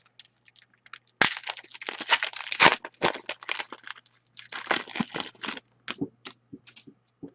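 A hockey card pack's wrapper being torn open and crinkled, a sharp snap about a second in, then several seconds of crackly rustling that thins to a few ticks near the end.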